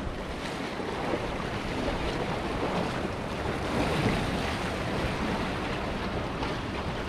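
Small waves washing and splashing against the boulders of a rock jetty, a steady wash of surf.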